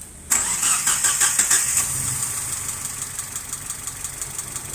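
Mitsubishi 4G33 four-cylinder engine starting up about a third of a second in. It runs loud and uneven for a second or so, then settles into a pulsing idle. The rough idle comes from a vacuum leak at a wrongly connected intake-manifold hose.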